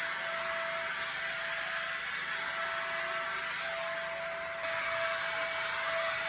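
Ingco SPG3508 450-watt electric HVLP spray gun running steadily while spraying paint: its motor blows a constant hiss of air and paint with a steady whine over it.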